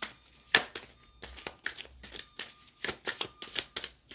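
A tarot deck being handled and shuffled by hand: a run of irregular, crisp card snaps and slaps.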